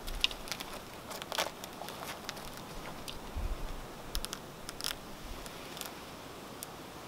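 Rustling and handling noise of a protective mask hood being pulled on and tightened by hand, with scattered small clicks and a few dull knocks as the fabric, straps and drawstrings are worked.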